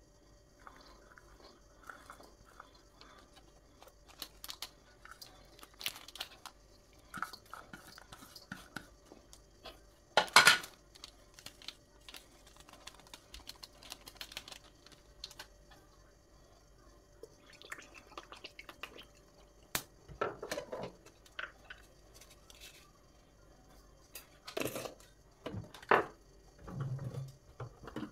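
Ingredients and a spoon going into a dry steel wok: scattered light taps, rustles and scrapes, with one louder knock about ten seconds in and a few more clatters near the end. There is no sizzling.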